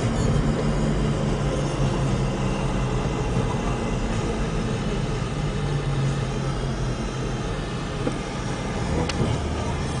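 Car engine and tyre noise heard from inside the cabin while driving, a steady drone; the engine note drops about eight seconds in.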